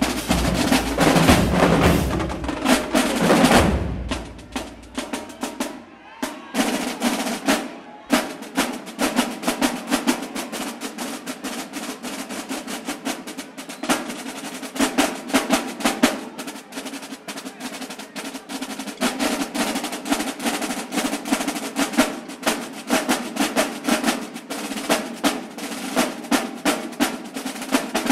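Marching band drumline playing a fast cadence. For the first few seconds deep bass drums sound under the snares. After that the bass drops out and the snare line plays on alone in rapid rolls and accented strokes, with short breaks twice.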